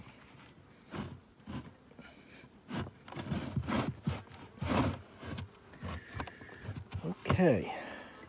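A wooden beehive being opened: an uneven run of knocks, scrapes and clunks as the lid and hive parts are handled, busiest in the middle.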